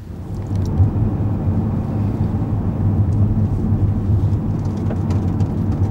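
Mercedes-Benz B 200 being driven, heard from inside the cabin: a steady low engine hum over tyre and road rumble. It builds over the first second and then holds.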